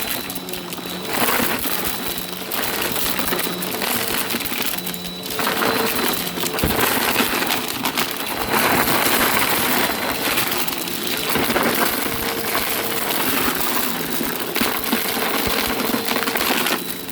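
Vacuum cleaner running with a steady motor whine, crackling and crunching as it sucks up crunchy debris, the noise swelling every few seconds.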